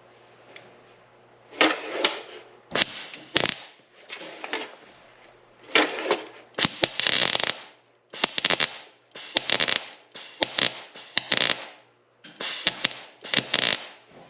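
Electric welder arc crackling and popping in about ten short bursts, each a second or less, as weld is built up on a broken-off stud to take a nut for extraction.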